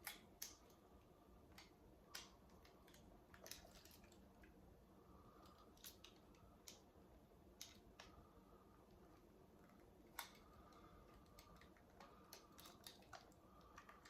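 Faint, irregular small clicks from a half-frame film camera's controls being worked by hand: lock, shutter button and film advance tried over and over on a camera whose winding is stuck.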